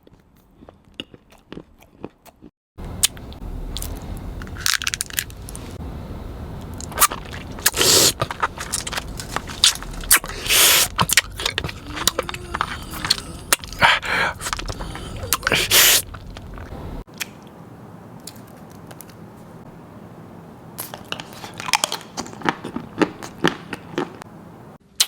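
Close-miked biting and chewing of crunchy food, crisp crunches coming in quick runs. Faint clicks at first, louder crunching from about three seconds in, then softer crackly chewing over the last several seconds.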